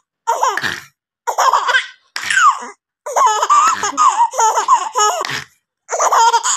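Baby girl laughing in repeated bursts of belly laughs, with a longer run of laughter about three seconds in.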